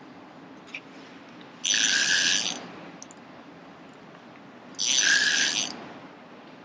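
Fixed-spool fishing reel wound in two short spells of about a second each, about three seconds apart, with a whirring gear note.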